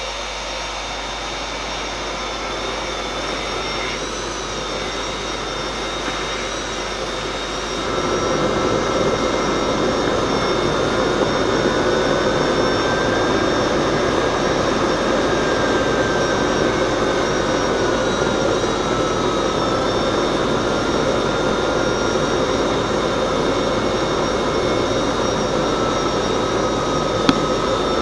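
Homemade jet engine running steadily at around 30,000 rpm: a loud combustion rush with a turbine whine that drifts slowly up and down in pitch. It gets louder about eight seconds in, and there is a single sharp click near the end.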